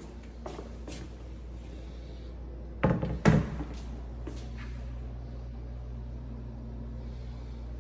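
Louvered bifold closet door clacking as it is folded, with small clicks at first and two loud knocks about three seconds in. A steady low hum runs underneath.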